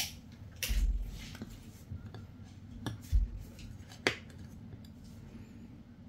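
Handling noise: about five sharp clicks and knocks of small hard objects being moved and set down, two of them with a dull thump, in the first four seconds, then quieter.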